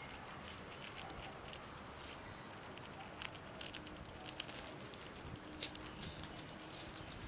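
Pet rat chewing a moth held in its paws: irregular small crunching clicks as it bites through the insect, the loudest a little past three seconds in.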